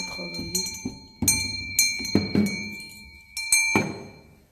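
A ringing metal object knocked about a dozen times at an uneven pace, its ring holding on between the knocks until it stops near the end.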